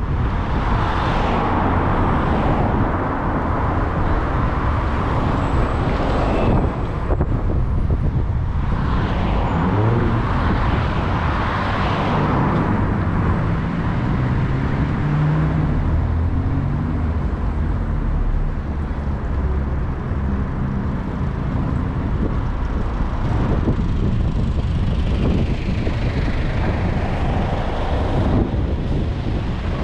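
Road and traffic noise from a moving vehicle in city traffic: a steady low rumble of engine and tyres, with a hiss that swells a few times.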